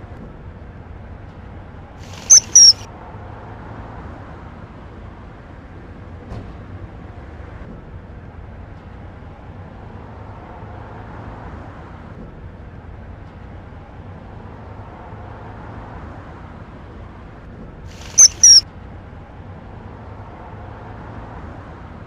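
Common kingfisher giving sharp, high-pitched calls: two short ones in quick succession about two seconds in and another pair near the end, over a faint steady hiss.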